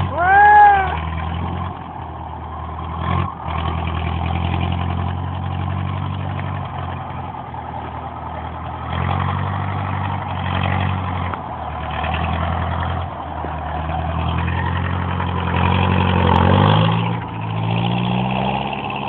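Zetor 8145 tractor's diesel engine running steadily, its speed rising and easing slightly, then dropping and picking up again near the end. A short, loud, high-pitched squeal that rises and falls in pitch comes about half a second in.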